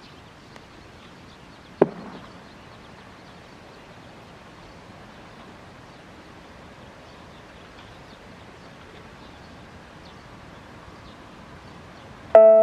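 Quiet steady outdoor background with a single sharp pop about two seconds in, from the disaster-prevention radio's outdoor loudspeaker switching on. Right at the end the speaker starts playing the electronic chime melody.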